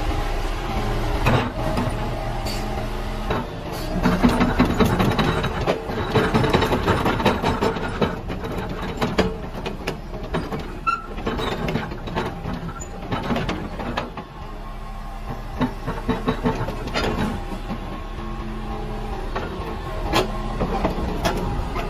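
Hitachi EX120 hydraulic excavator's diesel engine running and rising in loudness under hydraulic load as the boom and arm work, with many metallic clanks and rattles from the steel tracks and bucket linkage.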